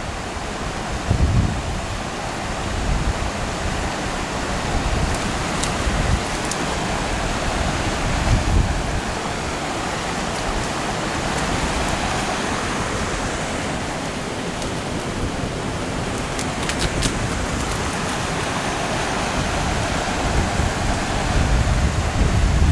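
Steady rushing of river water, with irregular low rumbling gusts of wind buffeting the microphone.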